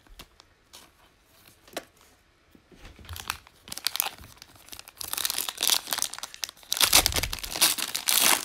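Foil wrapper of a 2020 Panini Mosaic football card pack crinkling and tearing as it is opened, starting about three seconds in and getting louder near the end. Before that there are only a few faint clicks.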